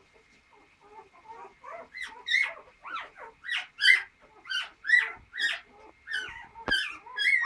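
Week-old standard poodle puppies squealing and crying in quick, short high-pitched squeaks, about two a second, growing loud about two seconds in: the cries of hungry newborn puppies.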